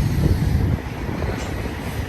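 BNSF intermodal freight train rolling past: a steady low rumble of the double-stack cars on the rails, with no horn sounding.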